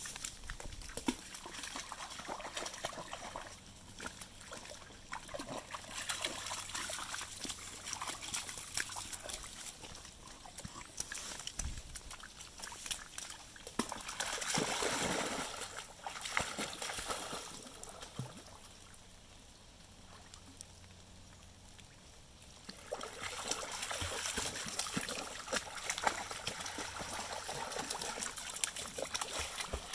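Shallow floodwater splashing and sloshing. About halfway through there is a big splash as a thrown ball lands in the water. For the last several seconds a dog wades and splashes through the water.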